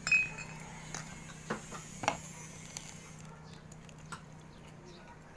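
Tableware clinking on ceramic dishes: one ringing clink right at the start, then a handful of lighter separate clicks and taps over the next few seconds. A faint steady low hum runs underneath.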